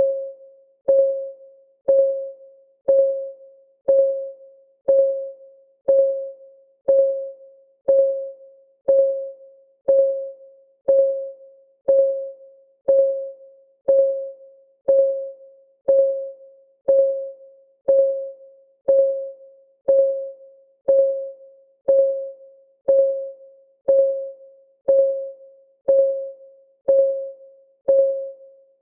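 Timer's clock ticking sound, one tick every second, each a sharp click with a short pitched ring that fades quickly.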